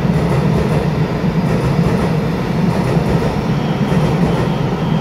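Taiwan Railway EMU900-series electric multiple unit (set EMU950) pulling out along an underground station platform: a steady, loud rumble of wheels and running gear, echoing in the station.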